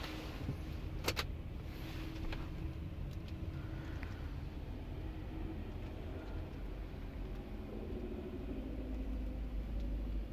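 Light truck's diesel engine idling steadily, heard inside the cab as a low, even rumble. Two sharp clicks come in the first second or so.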